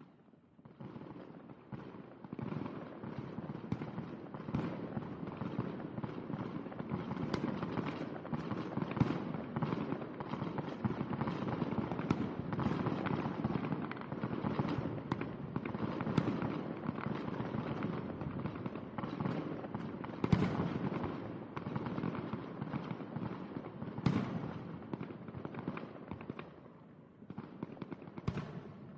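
Fireworks crackling and popping in a dense, continuous stream, with a few louder bangs scattered through, thinning out near the end.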